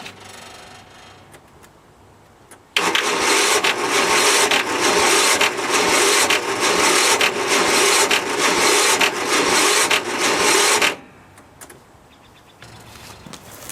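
Murray riding mower's 13 hp Tecumseh engine being cranked by its electric starter for about eight seconds, a steady pulsing rasp, without the engine catching: a hard start. The cranking starts about three seconds in and stops suddenly about three seconds before the end.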